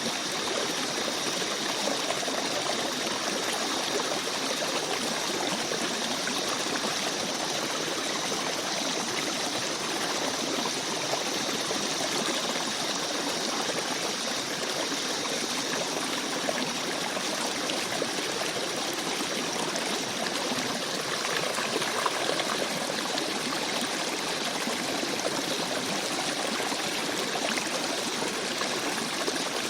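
Babbling forest brook: water running and trickling in a steady, even rush.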